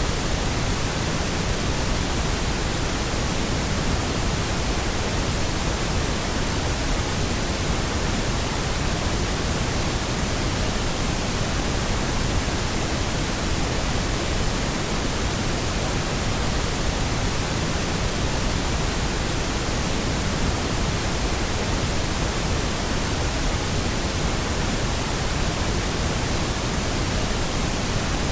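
Steady pink noise: an even, unchanging hiss across the whole range, continuous and without any change or event.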